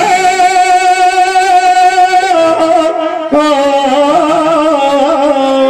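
Instrumental music from a melody instrument playing long held notes that waver slightly. The pitch steps to a new note a little over two seconds in and again about a second later.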